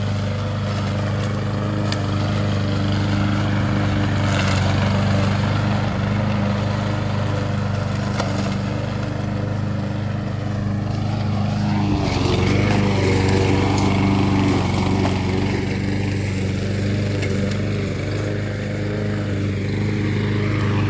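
Walk-behind petrol lawn mower's small engine running steadily while cutting long grass, its note shifting slightly about halfway through.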